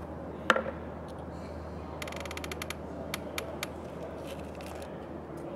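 Hands handling a cardboard box and the light model-airplane parts inside it. There is one sharp click about half a second in, then a quick run of small clicks about two seconds in and a few more a second later, over a steady low hum.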